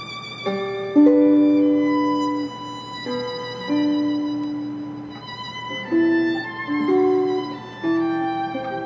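Slow instrumental music: notes and chords come in one after another, each starting sharply and fading away.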